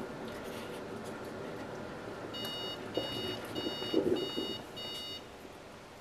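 Ninja coffee bar sounding five short electronic beeps, evenly spaced about half a second apart, a couple of seconds in. This is the machine's five-beep signal that the brew has stopped short. Low thumps from the machine come between the beeps.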